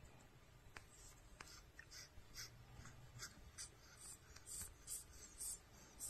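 Pionus parrot wheezing: a faint run of short, raspy hisses, about two to three a second, growing louder toward the end. This is the 'Pionus wheeze' the birds usually make when excited; it can sound like a respiratory problem but is normal.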